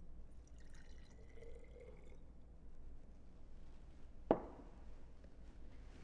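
Hydrogen peroxide poured from a measuring cup into a small glass jar: a thin trickling pour lasting about a second and a half. About four seconds in comes a single sharp knock.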